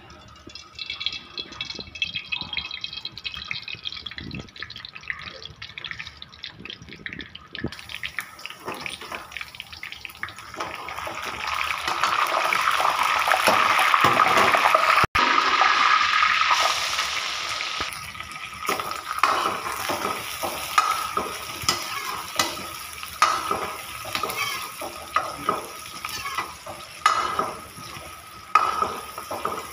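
Cooking oil poured into an iron kadhai, then spices sizzling in the hot oil, loudest about halfway through. Near the end a metal ladle stirs onions in the kadhai, scraping against the metal in repeated strokes.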